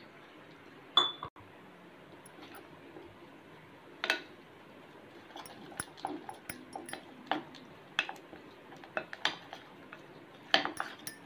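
Metal spoon clinking and scraping against a glass mixing bowl while stirring flour, spices and water into a thick batter. There are a couple of sharp knocks in the first few seconds, then quick irregular taps and scrapes from about five seconds in.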